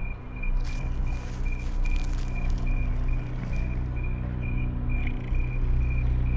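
A low, deep growling rumble that swells from about halfway through, with a faint high beep repeating steadily over it: horror-film sound design.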